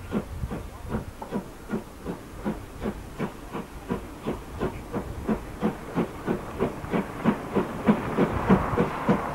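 DB class 23 steam locomotive 23 105, a two-cylinder 2-6-2, working a passenger train: a steady exhaust beat of about three chuffs a second. The beats grow louder near the end as the engine draws closer.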